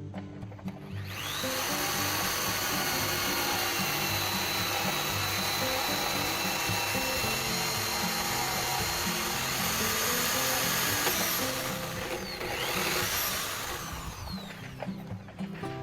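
Handheld electric power tool spinning up about a second in, running at a steady high whine for about ten seconds, winding down, then running again briefly. Background music plays underneath.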